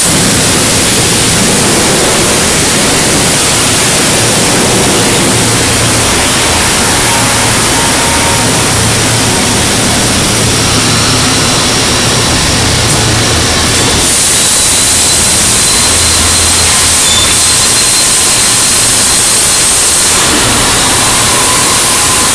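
Loud, steady industrial din of heavy machinery in a steel plate shop: a constant rushing noise with a low hum underneath and no distinct single events.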